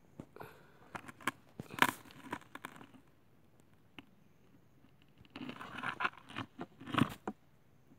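Footsteps crunching and scraping on stony, gravelly ground: a run of irregular crunches for the first three seconds, a quiet spell, then another run about five to seven seconds in.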